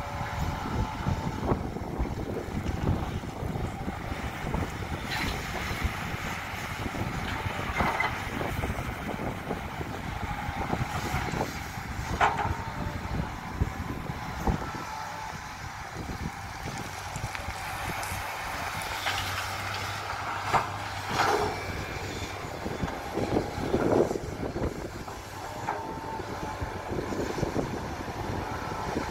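SANY SY215C excavator's diesel engine running steadily under working load, with irregular knocks and thuds every few seconds.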